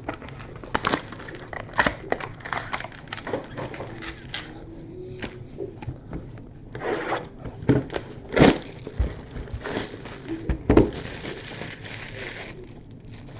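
Trading-card packaging being torn open and crinkled by hand, a run of rustling, crackling and tearing with scattered sharp clicks.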